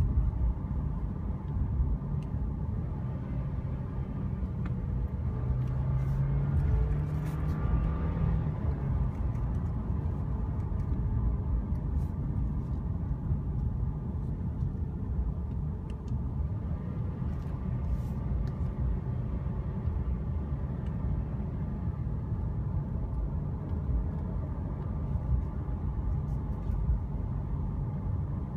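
Cabin noise of a 2015 Mercedes-Benz C300 4MATIC on the move: a steady low rumble of tyres and its turbocharged four-cylinder engine. The engine note swells and climbs slightly between about five and nine seconds in.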